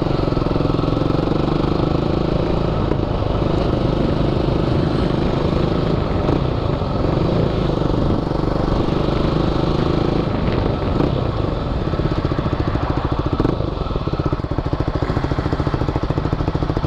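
A 450 cc Triton quad's engine running as it rides slowly in traffic. It drones steadily at first, then drops to a slower, pulsing beat in the second half.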